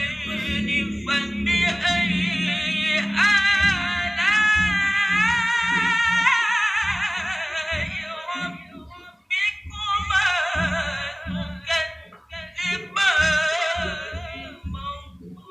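A male qori (Quran reciter) chanting in long, ornamented melodic phrases, with a short pause about nine seconds in before the next phrase. The recitation is doubled with a slightly delayed, quieter copy of itself, giving it a studio-style echo.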